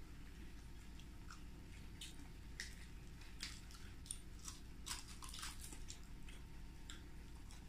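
People chewing and biting into chicken wings and crisp lettuce leaves, a scatter of short crunches and mouth clicks that is busiest in the middle, over a faint steady low hum.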